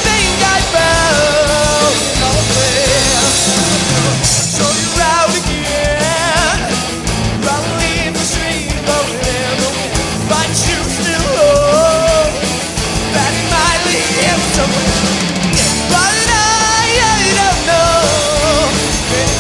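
Rock band playing live, drums and band going at full volume, with a sung lead vocal whose line bends up and down in pitch.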